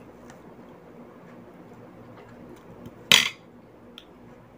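Tableware clinking: a few faint taps of a utensil on dishes, then one short, loud clatter of a utensil against a plate or bowl about three seconds in.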